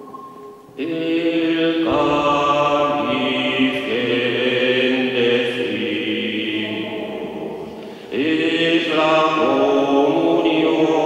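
Liturgical chant sung by voices. It starts about a second in, breaks off briefly about eight seconds in, and starts again with a new phrase.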